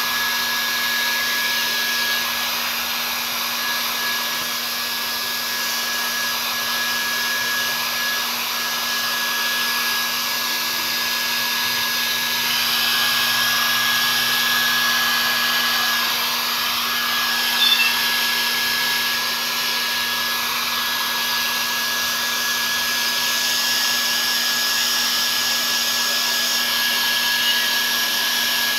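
Blow dryer running steadily, a constant airflow hiss with a fixed motor whine, drying a Persian cat's fur after its bath.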